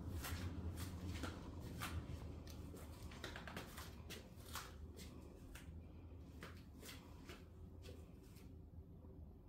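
Footsteps on a hard tile floor: sharp taps roughly twice a second that thin out after about six seconds, over a low steady hum.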